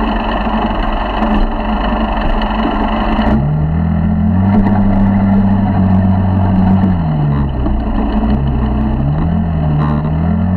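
Small 50cc four-stroke motorized-bicycle engine running while the bike rides over rough grass, with bumping and wind noise. A little over three seconds in the rough noise drops away and the engine note rises, holds, falls back, then climbs again and wavers as the throttle changes.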